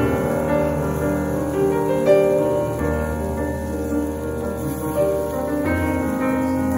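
Instrumental background music with held notes and chords.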